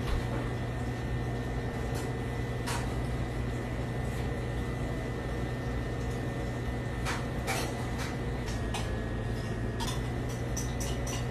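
Steady low machine hum with a faint high whine behind it, broken by a few light clicks. Near the end comes a quick run of crinkles from plastic wrap being peeled off cheese slices.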